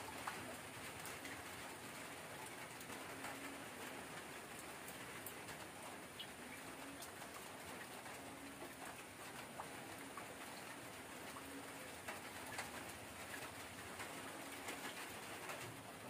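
A dove cooing in short low notes every few seconds, over a steady patter of rain with scattered drop clicks.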